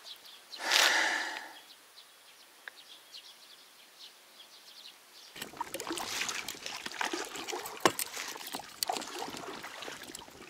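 Water lapping and splashing against an inflatable rubber boat, with scattered small knocks and clicks, from about five seconds in. Before that there is a brief rustling noise about a second in, then near quiet.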